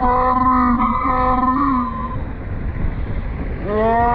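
Motorcycle engine revving hard, its whine holding a high pitch, falling away about two seconds in, then climbing again near the end over a low road rumble.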